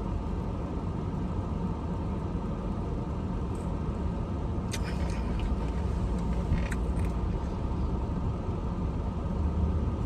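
Steady low rumble of a parked car's cabin, typical of the engine idling, with a few short clicks about five and seven seconds in.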